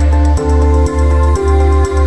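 Background music with sustained chords over a steady bass and a beat about twice a second.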